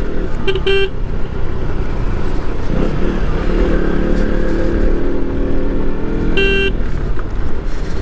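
KTM Duke 125's single-cylinder engine running under way on a rough road, with short horn toots: a quick double beep about half a second in and another beep about six seconds later.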